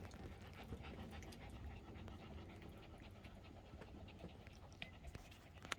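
A dog panting faintly, over a low steady hum.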